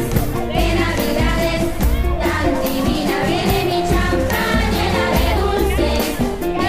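Background music: an upbeat song with a singing voice over a steady pulsing beat.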